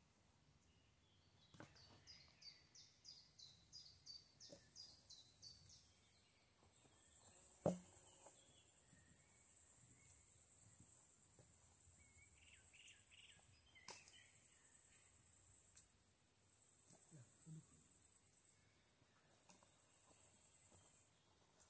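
Insects trilling in a high, steady buzz that sets in a few seconds in and then comes and goes in long stretches of several seconds. A bird calls in short rows of quick repeated notes near the start and again midway, and there are a few faint knocks, the sharpest about eight seconds in.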